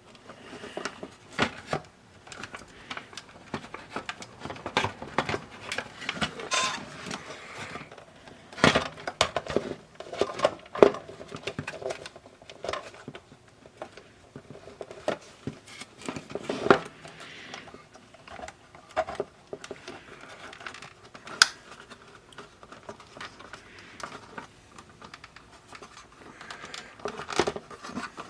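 Irregular clicks, taps and rustling from small parts of a radio cassette player being handled and fitted by hand, with a few sharper knocks now and then.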